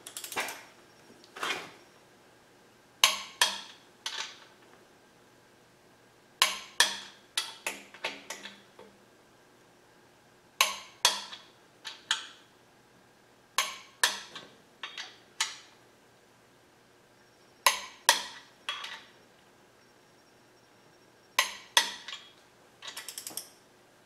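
Click-type torque wrench ratcheting on the main bearing cap bolts of a small-block Chevy 350 and clicking as each bolt reaches its 50 ft-lb setting. Sharp metallic clicks come in short clusters every few seconds.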